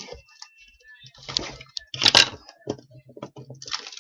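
Packaging being handled and torn open: irregular crackling and rustling bursts of plastic wrap and cardboard as a box of trading cards is broken open.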